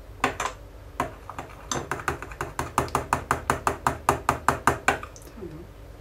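Metal spoon stirring thick liquid soap in a glass measuring jug, clicking against the glass: a couple of single clicks, then a fast even run of about five clicks a second from about two seconds in until near the end.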